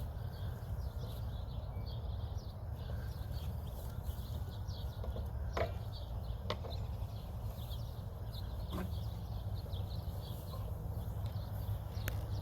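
Birds chirping over a steady low rumble, with a few sharp knocks about halfway through.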